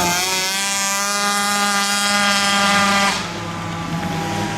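Flat-track racing engines running at high revs as the field goes past, with several engine notes layered at once. The loudest note rises at the start, holds, then drops away about three seconds in.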